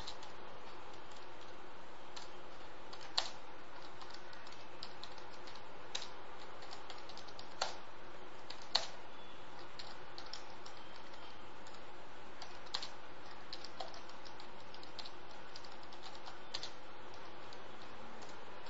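Computer keyboard keys tapped in scattered strokes over a steady hiss, a few keystrokes louder than the rest.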